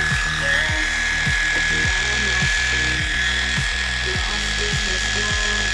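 Background music with a steady beat, over a Heiniger cordless clipper running with a steady high whine as it shaves a cat's leg fur.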